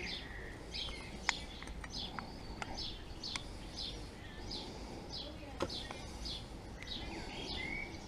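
A small songbird singing, with short descending chirps about two a second and a brief whistled note near the start and the end. A few faint light clicks come from the motorcycle brake caliper's pads and pin being handled.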